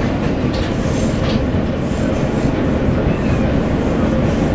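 Ride noise inside a moving subway car: a steady low rumble of steel wheels running on the rails, with a faint steady hum.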